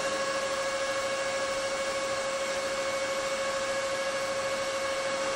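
Steady hiss and hum of a TIG welding setup on a Lincoln Sprinter 180Si inverter welder, holding one level throughout with a constant hum tone.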